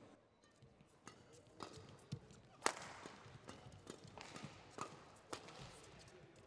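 Badminton rally: rackets striking the shuttlecock back and forth, a sharp crack about every half second, starting about a second and a half in, the loudest about halfway through.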